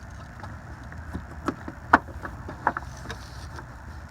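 A few light clicks from handling the plastic turn-signal bulb socket and bulb, over a low steady rumble.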